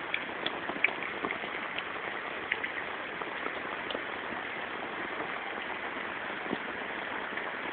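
Southwest monsoon rain falling steadily as an even hiss, with scattered sharper drop ticks that grow fewer in the second half.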